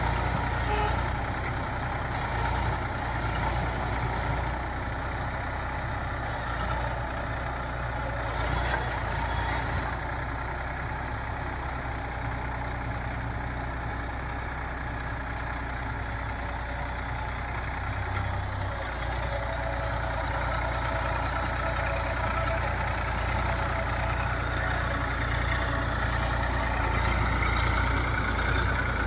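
Massey Ferguson 241 tractor's diesel engine running steadily while working the loader-backhoe attachment, with a few short knocks about a third of the way in and the engine note rising near the end.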